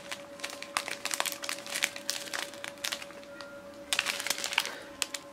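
Clear plastic zip-lock bags of diamond painting drills crinkling as they are handled, with a lull in the middle and another burst of crinkling about four seconds in. A steady hum runs underneath.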